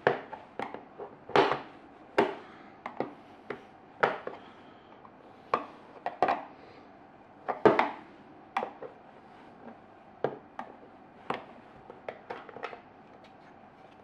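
A flat-blade screwdriver prying a plastic thermostat fascia out of a chest freezer's side: irregular sharp clicks and knocks of the blade and plastic panel against the cabinet, the loudest about a second and a half in and again past the middle.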